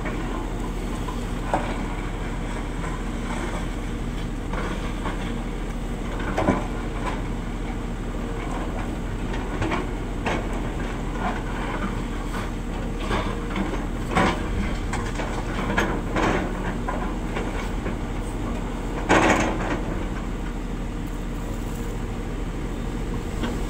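JCB JS225 tracked excavator working, its diesel engine running steadily under load, with irregular metallic clanks and scrapes from the bucket and steel tracks as it digs and moves over the earth; the loudest clatter comes about three-quarters of the way through.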